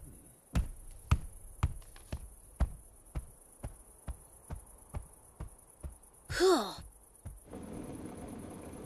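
Heavy cartoon footsteps of a large dragon walking away, about two steps a second, over a steady high cricket-like chirr. Near the end a short vocal sound glides in pitch, followed by a faint steady hiss.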